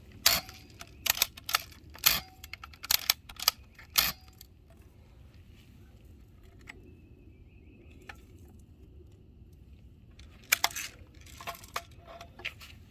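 Sharp mechanical clicks and knocks from handling and loading a BB gun: a rapid cluster in the first four seconds, a quiet stretch, then a few more near the end.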